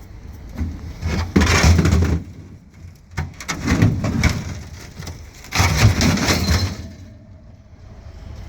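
Scrap metal being handled and loaded: three separate bursts of rattling and scraping, each about a second long, then quieter steady noise.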